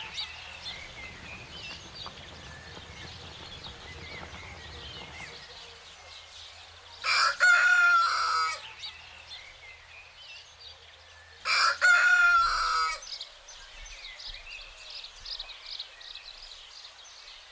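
A rooster crowing twice, each crow about a second and a half long, with small birds chirping in the background.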